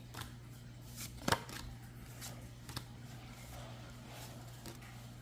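Pokémon trading cards being handled and flipped through: soft rustles and light clicks, with one sharper snap about a second in, over a low steady hum.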